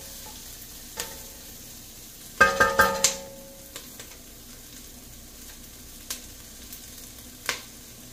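Diced red onion sizzling in oil in a pot, stirred with a wooden spatula. About two and a half seconds in come several loud knocks with a short ring as the spatula strikes the pot.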